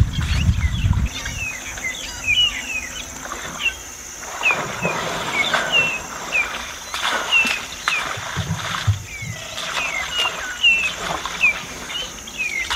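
Many small birds chirping in quick, short calls, over a steady high insect drone. Now and then a short rustling tear as an African elephant pulls up grass and roots with its trunk.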